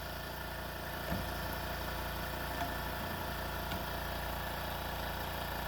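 A steady, even machine hum with a few faint ticks.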